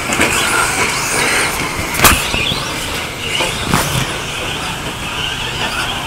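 Radio-controlled stadium trucks running on a dirt track, with two sharp knocks, one about two seconds in and another near four seconds.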